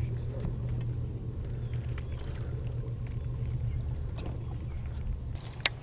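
A boat's motor hums steadily with a faint high whine. A sharp click comes near the end, and the whine stops with it.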